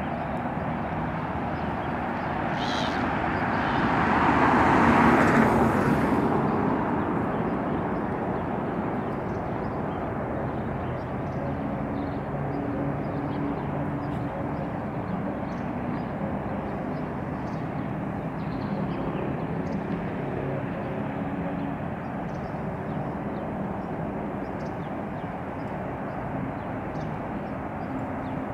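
Steady outdoor background hum of distant traffic, with one vehicle passing louder, rising and fading about four to six seconds in.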